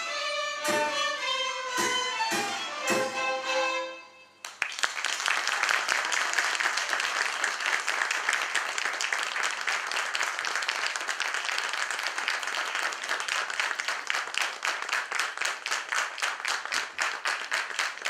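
Children's violin ensemble playing the last strongly accented chords of a piece, ending about four seconds in. Audience applause follows, settling into rhythmic clapping in unison, about three claps a second, near the end.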